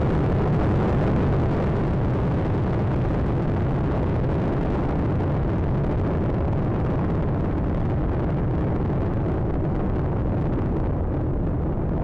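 Space Shuttle Atlantis's rocket boosters and main engines during ascent: a steady, deep roar. It grows duller near the end as the vehicle climbs away.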